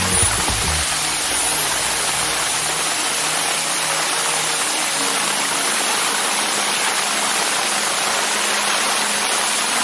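CNC milling machine's end mill cutting aluminum under flood coolant: a steady rushing hiss like running water, without pause.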